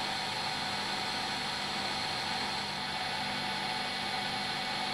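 Metal lathe running at a steady speed while a carbide insert tool turns a shoulder on a small steel pin, giving an even hum and hiss.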